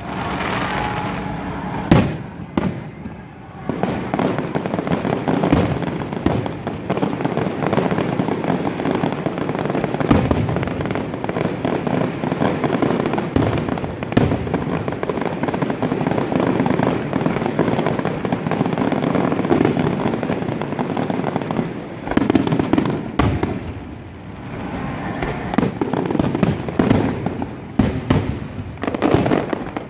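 Aerial fireworks display: many sharp bangs over dense, continuous crackling. The crackling thins out briefly about three-quarters of the way through, then builds again.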